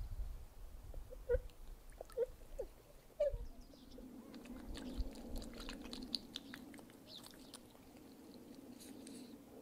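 Swans giving a few short, soft calls, then small splashing and dabbling sounds as a swan feeds with its bill in the water, over a steady low hum.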